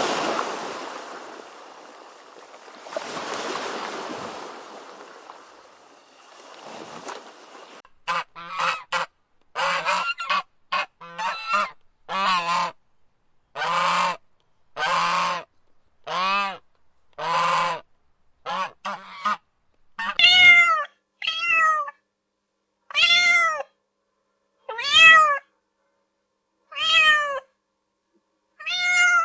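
Rushing, surf-like noise for the first several seconds. Then a rapid run of short animal calls from about eight seconds in, followed by longer calls that rise and fall in pitch, repeated every second or two.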